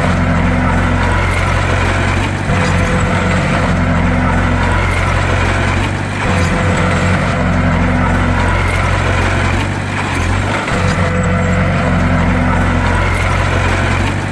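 Bulldozer's diesel engine running steadily under work, its low drone changing in a regular cycle about every three and a half seconds.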